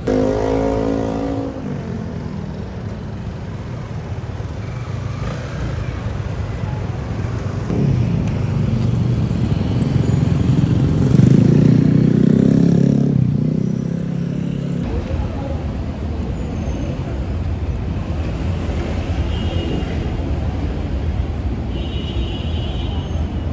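City street traffic: cars and motorcycles running past, with one engine louder for several seconds in the middle.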